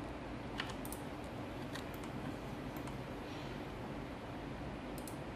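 A few isolated clicks from a computer keyboard and mouse being worked, over a steady low hum; two or three come close together near the end.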